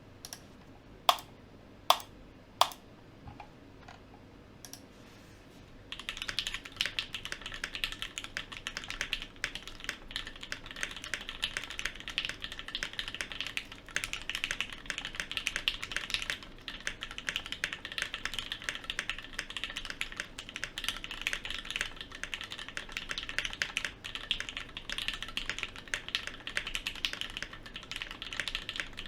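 Typing on a Bachoo Nemui mechanical keyboard with Gateron KS3 Yellow linear switches: three sharp single clicks in the first few seconds, then fast continuous typing from about six seconds in.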